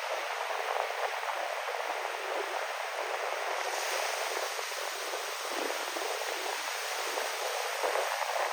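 Ocean surf washing in with wind, a steady rushing hiss that turns brighter about four seconds in.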